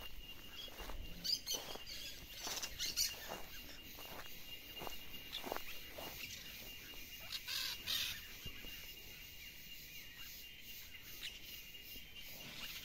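Footsteps through dry pasture grass, about two a second, fading out after around eight seconds, with scattered bird chirps and a faint steady high-pitched tone throughout.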